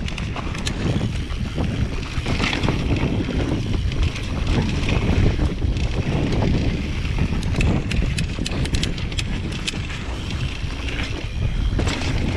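Mountain bike riding fast down a dirt forest trail on Maxxis DHF tyres: wind buffeting the camera microphone over a constant rumble of tyres on dirt. A run of sharp clicks and rattles from the bike comes about two thirds of the way through.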